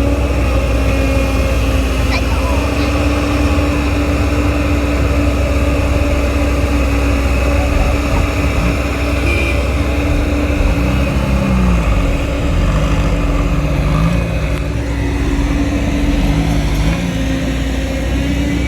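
Excavator's diesel engine running steadily under load, a deep rumble with a constant droning tone.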